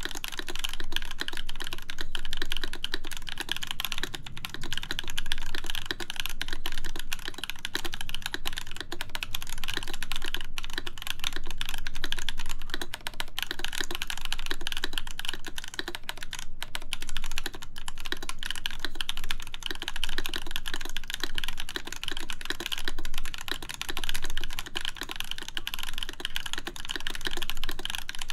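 Continuous typing on a full-size 43Studio 4398 mechanical keyboard with an aluminum plate, Krytox-lubed JWK Camping Life linear switches and MW Retro Lights keycaps: a dense, unbroken stream of keystrokes.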